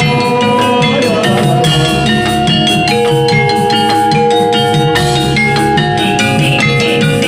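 Javanese gamelan music accompanying a kuda kepang dance: drums with struck metallophones and gongs playing a dense, steady rhythm over held ringing tones.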